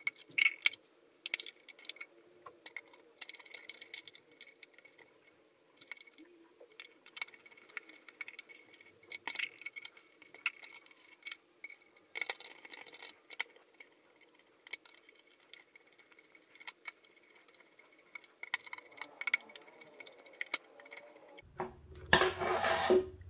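Small screwdriver driving screws into the metal backplate of an NVIDIA GeForce RTX 2060 graphics card: scattered light metallic clicks and ticks. Near the end comes a louder rubbing, scraping noise as the card is handled.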